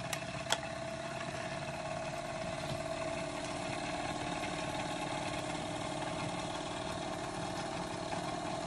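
Wilesco toy steam engine running steadily, turning a gear train and belt-driven shafts that drive a paper-strip music box, with a steady mechanical whirr and two sharp clicks in the first second. The music box plays no notes yet: the drive is still being geared right.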